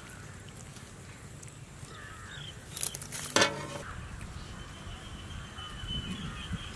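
Rural outdoor ambience with faint bird chirps. A crow caws once, loud and harsh, about three and a half seconds in, and a thin steady high tone holds through the second half.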